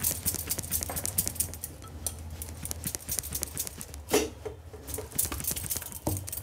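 Glass baking dish of freshly poured orange candy mixture being tapped and jiggled on a woven mat: a quick run of light knocks and rattles, with a heavier knock about four seconds in. The tapping settles the mixture and brings out trapped air bubbles.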